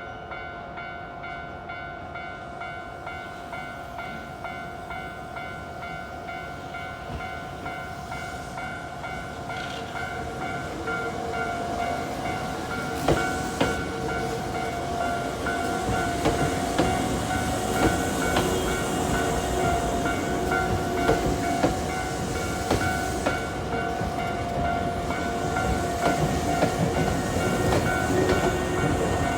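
Japanese railway level-crossing warning bell ringing steadily as a Hankyu train approaches and passes, getting louder throughout, with the wheels clacking over rail joints from about halfway in.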